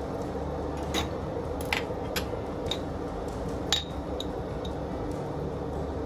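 Dishes and glassware clinking as they are handled: about seven light, ringing clinks, the loudest a little past halfway, over a steady low hum.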